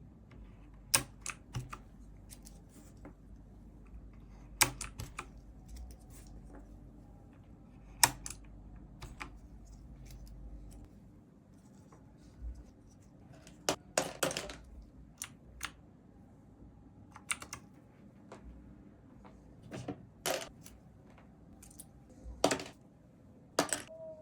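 Plastic keycaps being pulled one by one off a Razer V4 X mechanical keyboard: sharp, separate clicks and snaps at irregular intervals, often a few seconds apart. A low hum runs under the first half and stops partway through.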